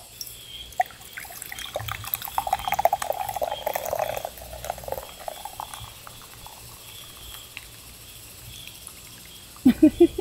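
Cola poured from a can into a glass mug, splashing and fizzing strongly for a few seconds, then settling to a quieter fizz as the pour slows. A short voice-like sound comes in near the end.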